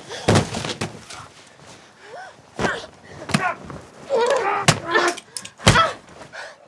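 Film fight scene: a series of about five sharp hits and thuds, the loudest near the end, mixed with grunts and shouts from the fighters.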